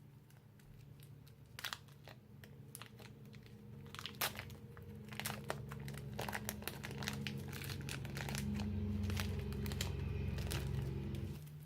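Slime with magic clay worked into it being squeezed and kneaded by hand, giving a run of crackling pops and crinkles. Under them a low rumble builds and then stops shortly before the end.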